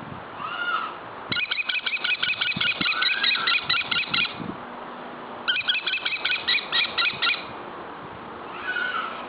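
European goldfinch singing: two runs of rapid, evenly repeated high notes, each lasting two to three seconds, with a short single call just before the first run and another near the end.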